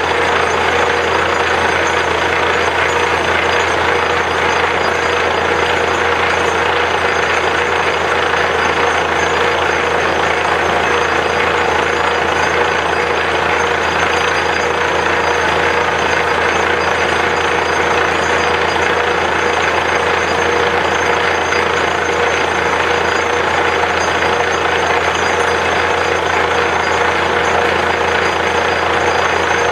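Borewell drilling rig running steadily: a loud, constant machine noise with a steady tone that does not change.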